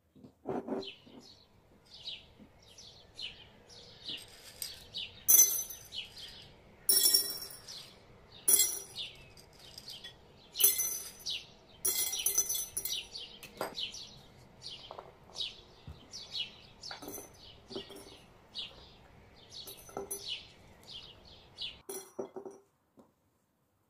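Dried chickpeas and then garlic cloves dropped by hand into empty glass jars, making a long series of small clinks and rattles on the glass bottoms.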